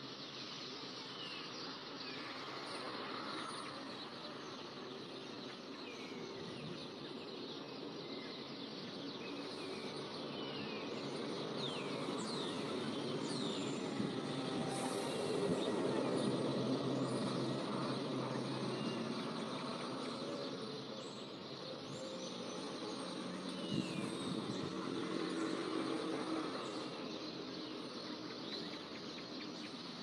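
Outdoor ambience: a steady background noise that swells around the middle and again later, with scattered bird chirps.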